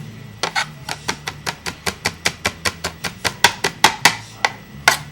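A kitchen knife chopping food on a cutting board in quick, even strokes, about five or six a second, with a short pause near the end.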